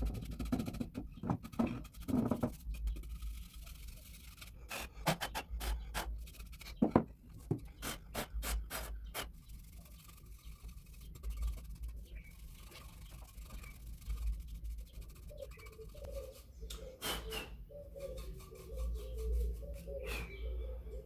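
Stiff-bristled brush swept over a sanded pine wood clock face to clear the sanding dust: a run of short, irregular scratchy strokes.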